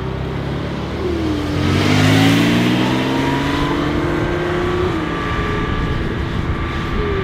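Mercedes G63 AMG's twin-turbo V8 through an Akrapovic exhaust accelerating. Its pitch climbs steadily for a few seconds, dips about five seconds in, and rises again near the end; it is loudest about two seconds in.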